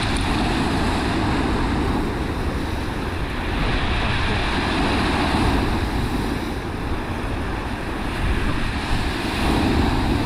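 Rough surf breaking on a shingle beach, with wind buffeting the microphone; the waves swell louder about four seconds in and again near the end.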